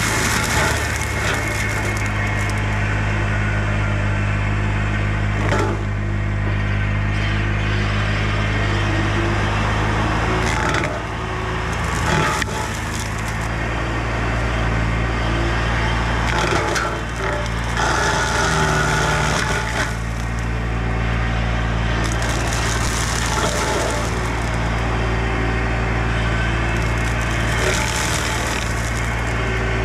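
Bobcat E35 mini excavator's diesel engine running steadily while its Baumalight CXC530 hydraulic mower cuts through woody brush, with bursts of cracking and splintering every few seconds.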